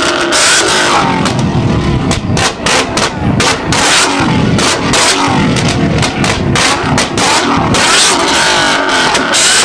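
Car engine held against a two-step launch rev limiter, its exhaust popping and banging in a rapid, irregular string of loud cracks for several seconds over the engine's low rumble.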